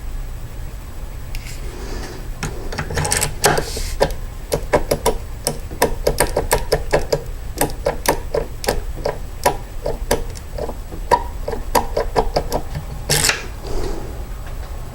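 Schlage depth key worked in a Schlage lock cylinder: a run of small sharp clicks, about three a second, as the key is rocked against the pins to leave impression marks, with a brief scrape near the end.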